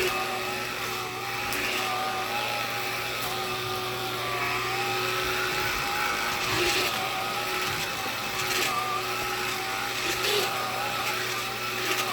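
Black & Decker cordless lithium pet vacuum running steadily with its beater bar on, a motor whine that wavers slightly in pitch as it is pushed over the floor, with a few faint ticks of debris being picked up.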